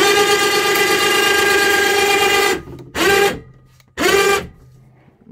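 A horn sounding: one long steady blast of about two and a half seconds, then two short blasts about a second apart.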